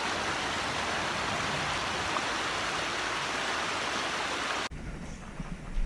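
Shallow creek water rushing over rocks, a steady hiss. It cuts off suddenly near the end, leaving a quieter background.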